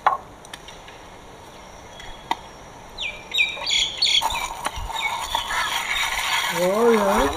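Metal ladles clink in a large aluminium pot of beaten egg, and birds chirp about three seconds in. From about halfway on, egg batter sizzles on a hot iron griddle, and a voice comes in near the end.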